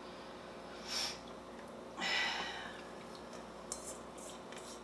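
Hand scooping and scattering grated cheddar from a stainless steel mixing bowl: soft rustles, with a brief squeaky rub against the steel about two seconds in and a few light clicks near the end.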